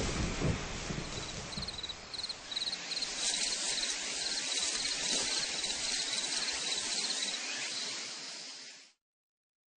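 Steady hiss of rain with an insect chirping in a regular rhythm, about two short high chirps a second. The sound fades out to silence about a second before the end.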